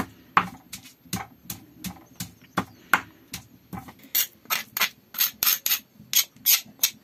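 Spice paste being ground by hand on a flat stone slab: a hand stone knocks and rubs across the slab in a steady rhythm of about three strokes a second. From about four seconds in, the strokes turn into sharper, brighter scrapes as a metal spoon scrapes the paste together on the stone.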